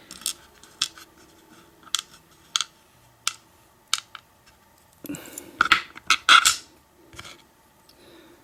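Small metal lock parts and tools being handled while an American 1100 padlock is taken apart: sharp clicks and taps, then a burst of louder scraping and clinking about five to seven seconds in.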